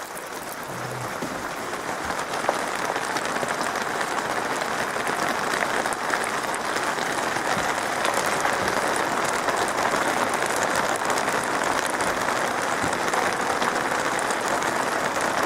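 Rain pattering on a cardboard house's roof, heard from inside: a dense, even patter that grows a little louder over the first few seconds and then holds steady. It is noisy, a bit like rain on a tin roof but not as sharp.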